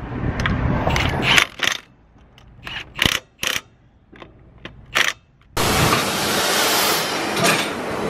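Metal clinks and taps of lug nuts being handled and threaded onto a car wheel hub by hand, a few seconds apart. About five and a half seconds in, a loud steady hiss begins.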